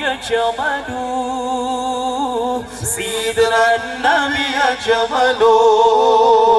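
Male voices singing a sholawat melody in long held notes that waver and slide in pitch, amplified over loudspeakers, with little percussion.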